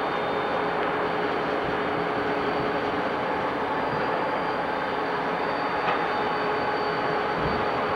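Diesel freight locomotives led by a Conrail unit rolling slowly past with their engines running and wheels on the rails, a steady continuous noise. A thin high tone comes in about halfway through.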